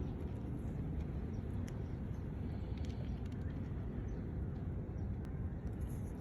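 Several faint, sharp clicks from a Reeves' turtle's jaw, the hiccup-like sound it makes while gulping food on land, the clearest about five seconds in. Under them runs a steady low rumble.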